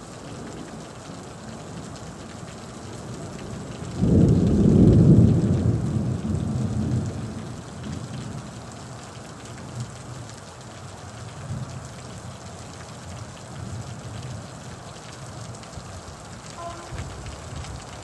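Steady heavy rain, with a loud low rumble of thunder breaking in about four seconds in and fading away over the next few seconds.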